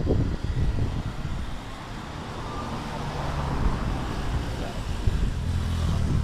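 Road traffic passing close by: cars going past with engine and tyre noise, the noise building through the second half as more vehicles go by.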